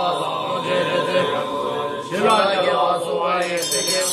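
Several voices chanting together, a Buddhist monks' chant.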